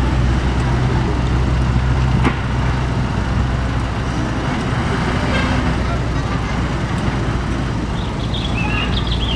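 Heavy diesel engines running steadily with a deep hum, from a mud-bound light dump truck and a wheel loader. A sharp knock comes about two seconds in.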